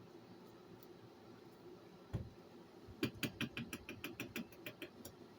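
A single knock, then about a second later a quick run of sharp mechanical clicks, about seven a second for two seconds, from small parts being worked by hand.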